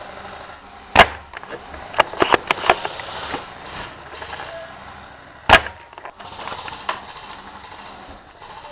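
Airsoft gun shots close to the microphone: two loud single cracks, about one second in and about five and a half seconds in, with a quick run of lighter clicks and cracks in between at around two seconds.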